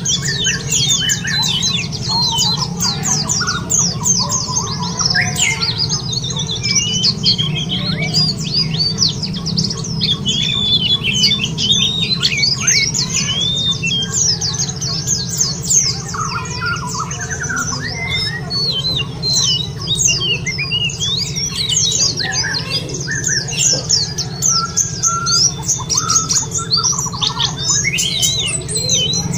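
A dense chorus of white-eyes (pleci, Zosterops) twittering: rapid high chirps and short trills overlap without pause, over a steady low hum.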